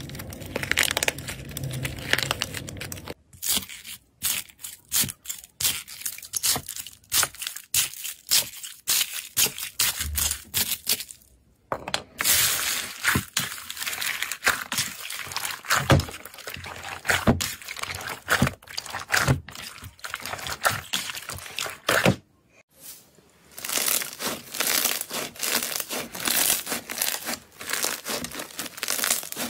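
Slime being squished and stretched by hand: a steady run of sticky crackles and small pops, pausing briefly about halfway through and again near two thirds of the way in.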